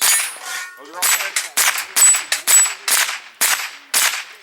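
Pistol-caliber carbine firing a rapid string of about ten shots, roughly two to three a second, with steel targets ringing as they are hit.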